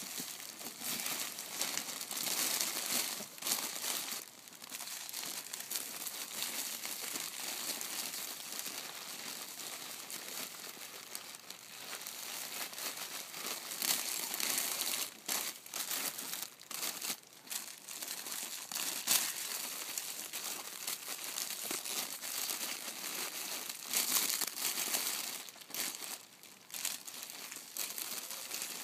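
Clear plastic flower sleeves on bunches of hydrangeas crinkling as gloved hands push and arrange the sleeved stems in a cardboard box, an irregular rustle with sharper loud crackles here and there.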